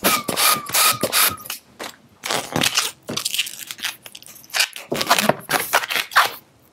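A hand pump inflates a latex 260 modelling balloon with quick air strokes, then the inflated balloon squeaks and rubs as it is handled and stretched between the hands, in a run of short scratchy bursts.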